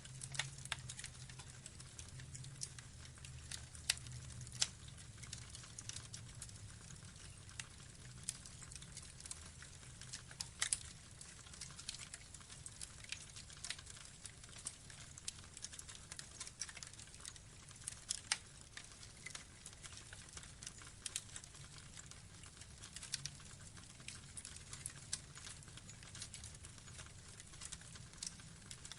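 Burning wood logs crackling: irregular sharp pops and snaps at no steady rhythm, over a faint low rumble.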